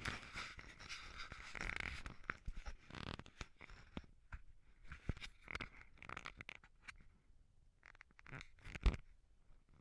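Scratchy rubbing and rustling close to the microphone, with irregular clicks and a sharp knock about nine seconds in: handling noise from hands and sleeve working the camera and a spinning reel.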